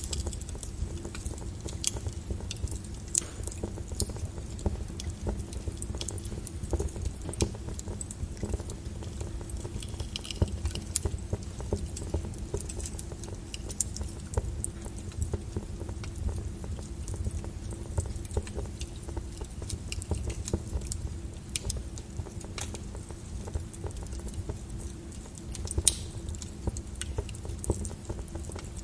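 Small wood fire in a fireplace crackling: frequent, irregular snaps and pops over a low, steady rumble of the flames, with one louder pop near the end.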